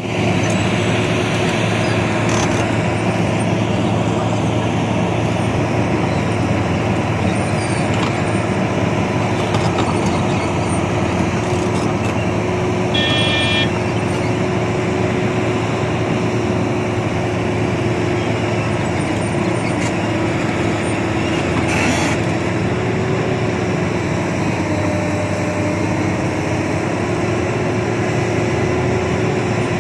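Heavy truck engine running steadily with road noise, with a brief high-pitched tone about thirteen seconds in.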